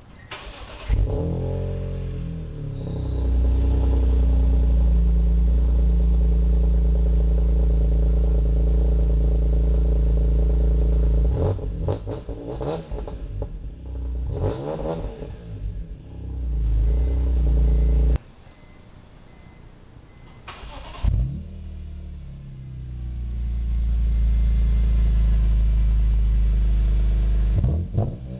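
BMW E46 M3's S54 straight-six on a cold start, heard at the exhaust tips. It fires about a second in, settles into a loud, steady fast idle, then is revved several times to about 3,000 rpm. The sound cuts off abruptly and a second start follows, settling into the same loud steady idle, with revs beginning near the end.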